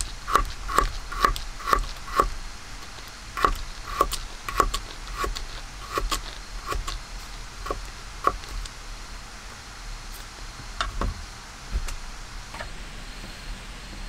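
Kitchen knife chopping a garlic clove on a wooden cutting board, with crisp knocks of the blade about twice a second, a short pause, then a few more spaced strokes.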